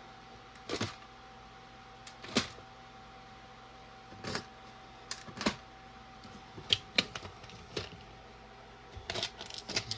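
Small plastic LEGO pieces clicking and clacking as they are handled and set down: a dozen or so irregular sharp clicks, bunching together near the end, over a faint steady hum.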